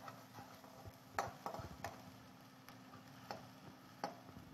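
A spoon clicking and scraping against a kadhai as onion paste is stirred and sautéed in oil, about six light taps spread out, over a faint frying sizzle.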